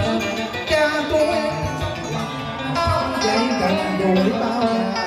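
Vietnamese cải lương singing: a male voice sliding and bending through the melody over live accompaniment on plucked string instruments, including guitar.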